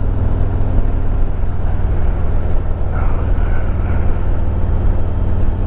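A 2022 Harley-Davidson Road Glide Limited's Milwaukee-Eight 114 V-twin engine running steadily under way, with a rush of wind and road noise.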